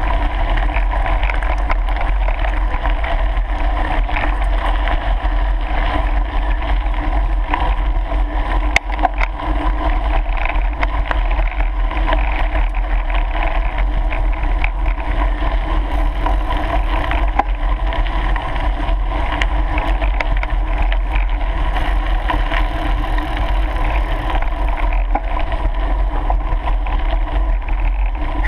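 Mountain bike rolling over a gravel track, heard from a camera mounted on the bike: a steady rush of wind on the microphone with a low rumble, over a constant patter of small ticks and rattles from the tyres on gravel. One sharper knock comes about nine seconds in.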